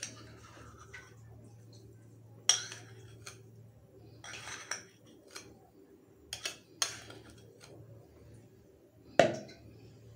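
Metal spoon scraping and knocking against a small ceramic bowl as spice pastes and salt are tipped into a plastic blender jar. It makes a handful of sharp clinks and short scrapes, the loudest clink about nine seconds in.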